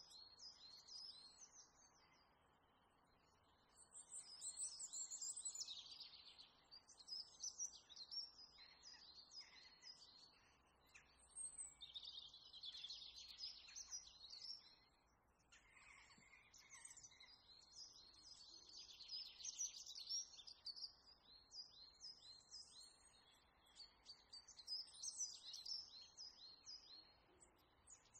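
Faint chirping of small birds: quick, high twittering calls in chattering bursts of a few seconds each, with short lulls between.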